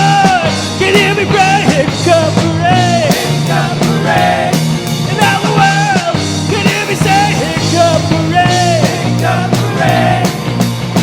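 Rock music: a full band with steady bass, drums, and a lead melody line that bends up and down in pitch.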